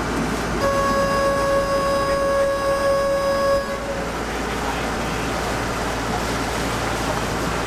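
Boat horn sounding one steady blast about three seconds long, starting about half a second in, over the steady rumble of a boat's engine and the wash of water.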